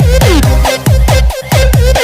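Loud electronic dance music with a heavy pulsing beat, deep bass and repeated falling synth sweeps.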